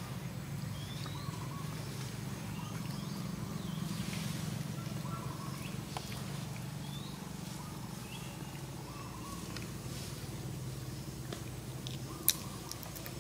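Outdoor ambience: a steady low hum under faint, short high chirps, with one sharp click near the end.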